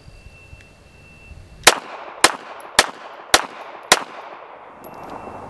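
Five shots from a Beretta 80X .380 ACP pistol, fired at an even pace about half a second apart, each with a short ring-out.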